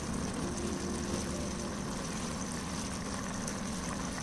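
Steady low mechanical rumble with an even hiss over it, the unchanging drone of a running machine in the kitchen.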